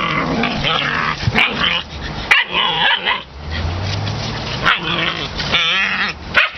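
A litter of puppies play-fighting, with overlapping growls, yips and barks. A low growl sounds in the middle, and a wavering whine comes near the end.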